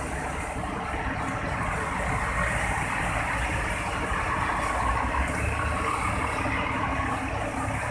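Scania P380 truck's diesel engine running steadily at low speed under heavy load, hauling a multi-axle trailer with an outsized cargo.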